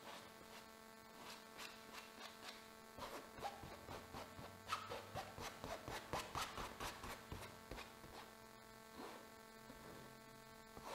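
Palette knife scraping and spreading oil paint across a canvas in many short, faint strokes, busiest in the middle of the stretch. A steady electrical hum runs underneath.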